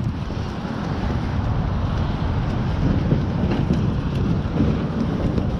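Low, steady rumble of wind buffeting the camera's microphone as a kayak is paddled, with a few faint splashes.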